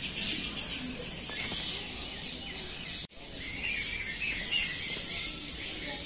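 Small birds chirping and twittering. The sound cuts out for an instant about three seconds in.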